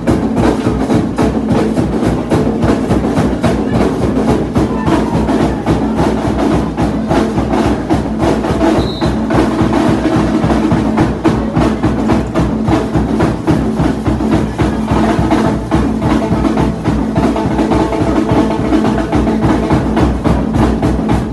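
Carnival street drum group: several hand-carried drums played together in a fast, continuous rhythm.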